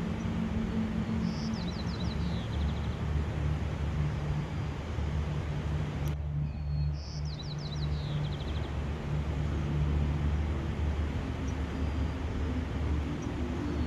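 A small songbird singing a short phrase twice, a clear note followed by a quick falling run of notes, over a steady rushing outdoor background with a low hum.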